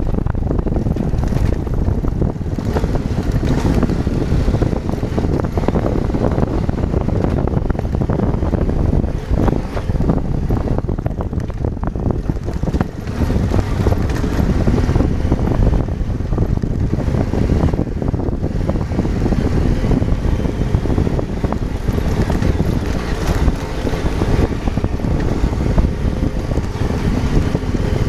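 Adventure motorcycle engine running while riding a rough dirt road, with wind buffeting the microphone and scattered knocks from the bumpy surface.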